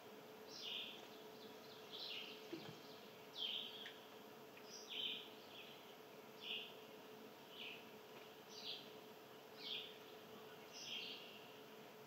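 A small songbird giving short, repeated chirps, about one a second, over a faint steady hum.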